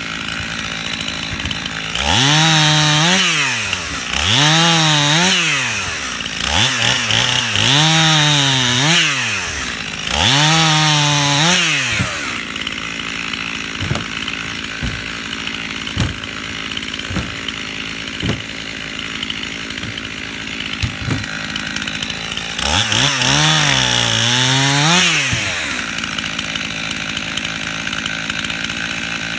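Stihl chainsaw idling, revved up four times in quick succession in the first half and once more near the end. Each rise is held for a second or so before it drops back to idle, as when bucking small limbs. A few light knocks of wood pieces come in the quieter stretch between.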